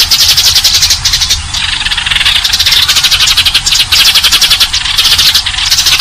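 A flock of Eurasian tree sparrows chattering: a loud, unbroken mass of rapid, overlapping chirps, the kind of recording played as a lure to draw sparrows in.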